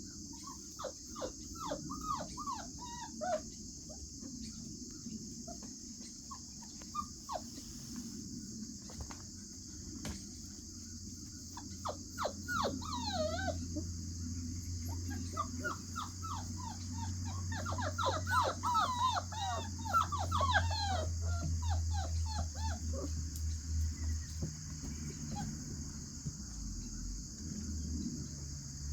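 Puppies whimpering and yipping in short, high, falling squeals. They come in scattered bursts, with a longer flurry past the middle.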